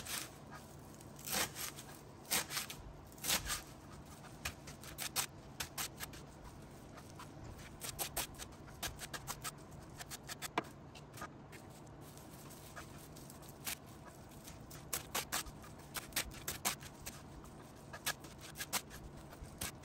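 Kitchen knife chopping curly parsley on a plastic cutting board: sharp, irregular taps of the blade on the board, coming in quick runs of several a second with short pauses between.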